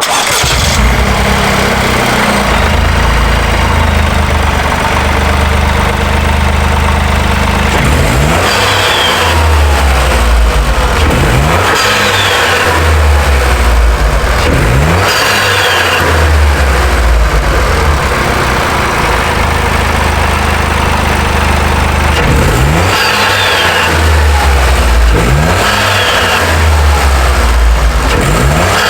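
Toyota GR Corolla's turbocharged 1.6-litre three-cylinder (G16E-GTS) engine, breathing through an Eventuri carbon fibre intake. It starts, settles into a steady idle, and is then blipped in a string of short revs from about eight seconds in, with a pause at idle between two groups of revs.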